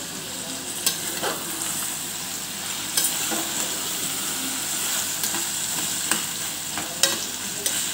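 Chopped vegetables sizzling in oil in an aluminium pressure cooker while a metal spatula stirs them, scraping and tapping against the pot every second or so.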